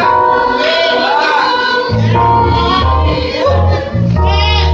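Gospel music with voices singing, and a low bass line coming in about two seconds in.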